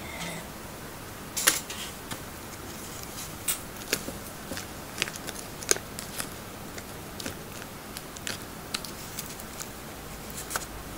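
Plastic spoon clicking and scraping against a paperboard food tray while mixing sauce into tofu: irregular sharp clicks, a few a second, the loudest about one and a half seconds in.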